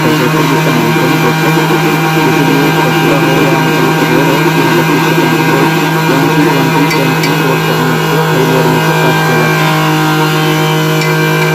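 Belt-driven mortar cube vibration machine running steadily: a constant loud hum with a rattling buzz from the clamped steel mould. It is vibrating fresh cement mortar in the cube mould to compact it and drive out the air bubbles.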